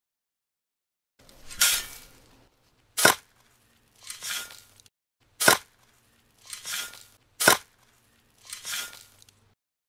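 A tiny hand-held scoop digging into a sand pile and tipping sand onto a miniature trolley bed: four short gritty scrapes alternating with three sharp taps, with silence between them.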